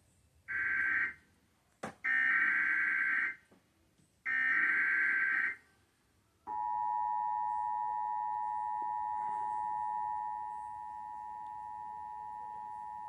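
Emergency Alert System header: three short bursts of SAME data tones, then, about six and a half seconds in, the steady two-tone EAS attention signal (853 and 960 Hz sounded together). The attention signal drops slightly in level about ten seconds in.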